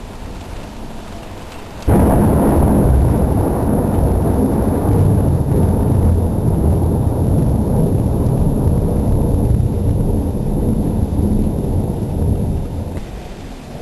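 Thunder: a loud peal starting suddenly about two seconds in, then a long low rumble that slowly dies away near the end.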